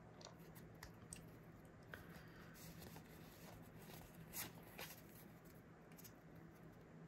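Near silence with faint rustling and a few soft ticks of Pokémon trading cards being handled and slid apart, over a low steady hum.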